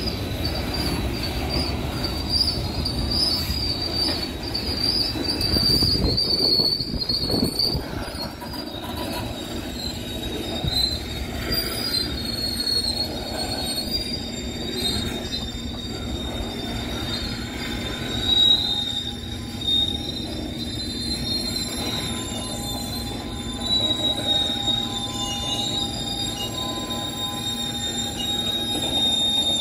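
Coal hopper cars of a freight train rolling slowly past, steel wheels squealing on the rails in a high, wavering squeal over a continuous rumble that is heavier in the first few seconds.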